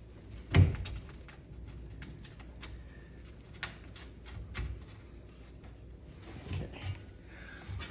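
A sharp knock about half a second in, then scattered light clicks and a few duller knocks from hands working the garage door's track and roller hardware.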